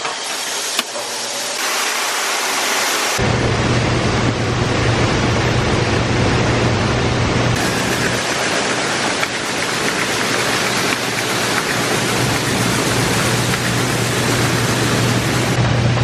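Grain bin being unloaded: shelled corn draining inside the bin with a steady rushing hiss, over a constant machine hum from the unloading equipment that sets in about three seconds in.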